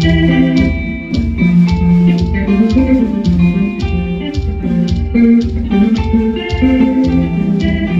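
Band music accompanying a hymn, with a steady beat of about two strokes a second under held chords and a moving bass line.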